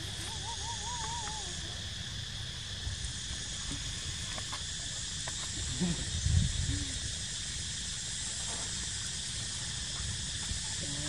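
Steady, high-pitched chorus of insects running continuously, with a short warbling call about half a second in and a few soft low thumps around six seconds in.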